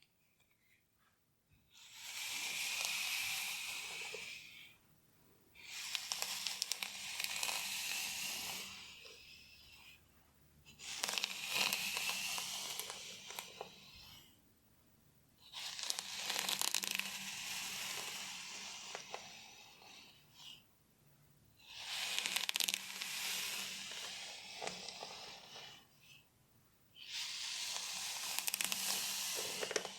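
Fingernails scratching through hair on a scalp in six slow passes, each a few seconds long, with short pauses between them.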